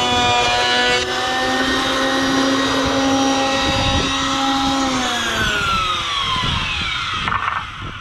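Benchtop surface planer's motor running with a steady high whine, then switched off about five seconds in and winding down, its pitch falling away over the next two seconds.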